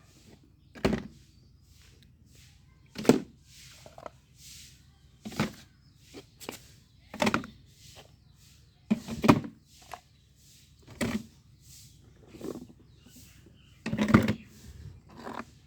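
Toy vehicles being dropped one by one into a basket: a knock every second or two, about eight in all, with a louder double knock a little past the middle.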